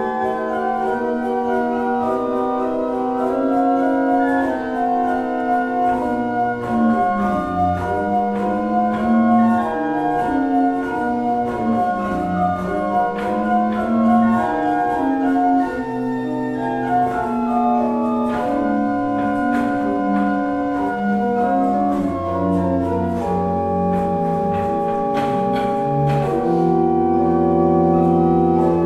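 Church pipe organ playing a slow piece in sustained, many-voiced chords. Deep pedal bass notes come in during the last third and are held to the end.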